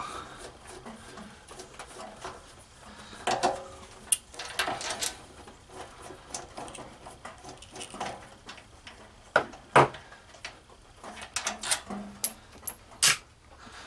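Scattered metallic clicks and knocks of a wrench loosening and removing the bottom 12 mm side-cover bolts from a small engine's crankcase, with the bolts clinking as they are handled. The sharpest knocks come about ten seconds and thirteen seconds in.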